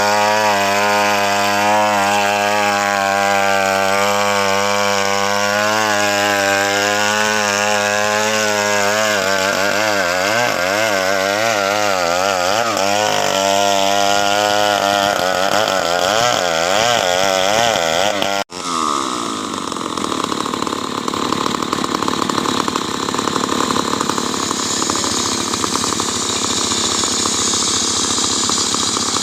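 Stihl chainsaw running at high revs while cutting wood, its pitch wavering as the bar works through the timber. About two-thirds of the way through the sound breaks off abruptly, then the saw carries on with a rougher, noisier note.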